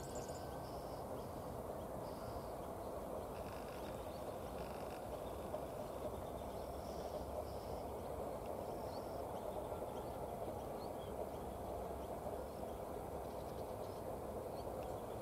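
Outdoor field ambience: a steady low rushing background with short high-pitched bird chirps scattered through it, several in a cluster about three to five seconds in.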